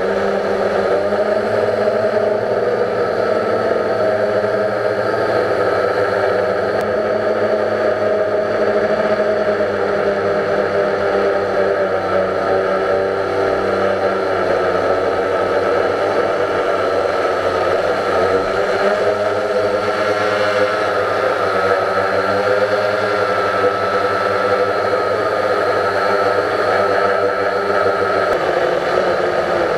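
A small quadcopter drone's electric motors and propellers whirring steadily, heard from the camera on board. The pitch drifts slightly up and down as the throttle changes.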